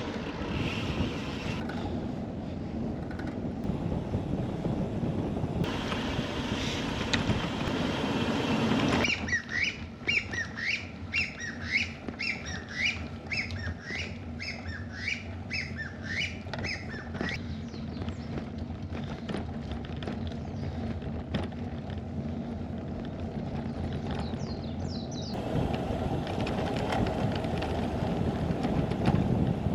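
Wind rumbling on the microphone during outdoor riding. For several seconds in the middle, a run of short rising chirps repeats about once a second.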